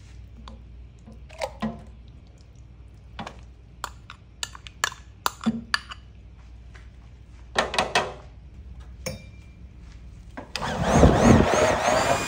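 Metal spoon clicking and scraping against a glass bowl as thick almond paste is scraped out into a jug of milk. About ten seconds in, a stick blender starts up in the milk and runs steadily, the loudest sound, blending the gelato base.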